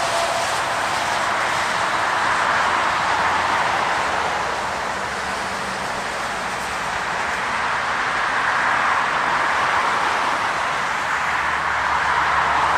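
Highway traffic: a continuous rush of tyre noise from passing cars and trucks, swelling and fading about three times as vehicles go by.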